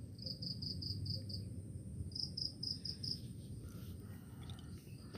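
An insect chirping in runs of short, high pulses, about five a second, pausing between runs, over a faint steady low rumble.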